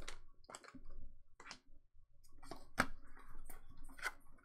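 Pokémon trading cards being flipped through by hand, the cards snapping and sliding against each other in a string of light, irregularly spaced clicks.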